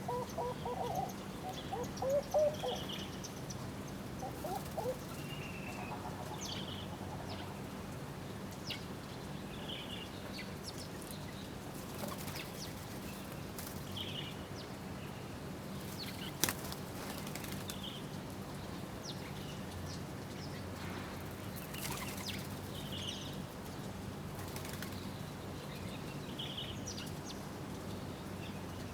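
Small birds at a feeder giving short, scattered chirps, with a cluster of lower, louder calls in the first few seconds and a few sharp clicks or flutters now and then. A steady low hum runs underneath.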